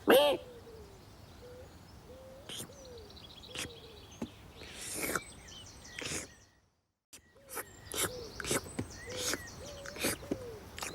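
Cartoon sound effects: a series of short, wavering bird-like calls about once a second among sharp clicks, broken by a brief total silence a little past halfway.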